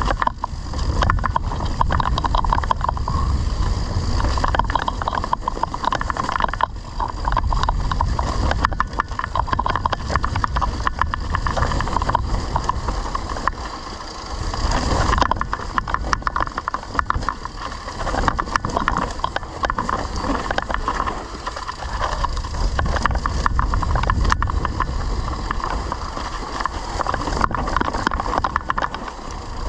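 Mountain bike riding over rough off-road trail: a steady rush of wind on the microphone with constant, irregular rattling and clatter from the bike over bumps.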